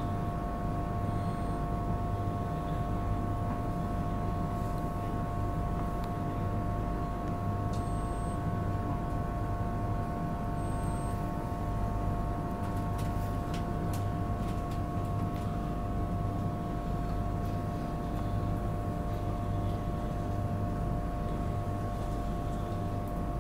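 Steady hum of the onboard equipment inside a Mk4 passenger coach of an Intercity 225 train standing still: a low electrical drone with a few fixed whining tones on top, and a few faint clicks about halfway through.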